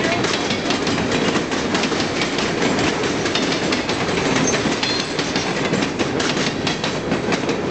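Empty coal cars of a freight train rolling past: a steady rumble with rapid clicking of the wheels over the rail joints. A couple of brief high wheel squeals come a little past the middle.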